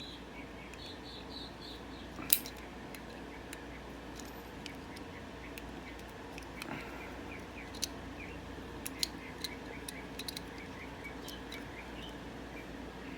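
Scattered small sharp clicks of plastic and a tool being handled while the retaining tabs of a BMW start button assembly are pried open, the loudest about two seconds in and a cluster later on. Birds chirp repeatedly in the background over a steady low hum.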